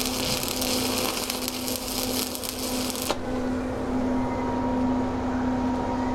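Welding arc crackling and hissing during an overhead capping pass on plate, then cutting off suddenly about three seconds in as the arc is broken. A steady low hum carries on after it.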